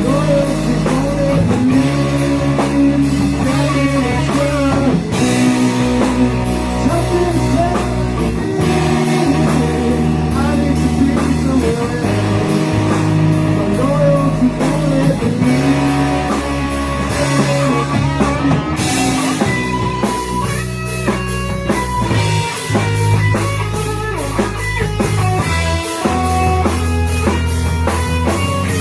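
A rock band playing live: electric guitar, bass and drum kit in a steady beat, with a sustained guitar line over the rhythm.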